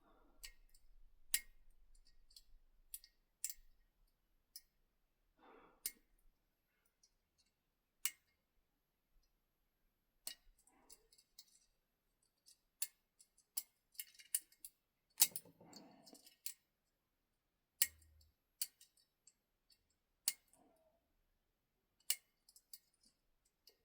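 Lock pick and tension wrench working the pin stack of a cheap Tri-Circle shutter padlock during single-pin picking: small sharp metallic clicks and ticks at irregular intervals as pins are lifted and set in a loose, springy core.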